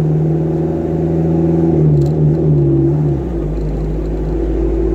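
Truck engine running, heard from inside the cab as a steady hum. The engine note changes about three seconds in, with a deeper rumble taking over.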